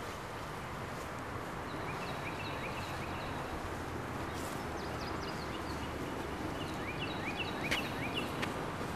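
Outdoor ambience: a steady background rush with small birds chirping in short, quick notes, a flurry about two seconds in and another near the end.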